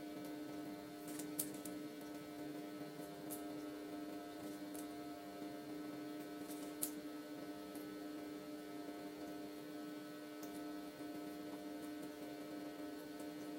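A steady electrical hum with a few faint, short clicks scattered through it.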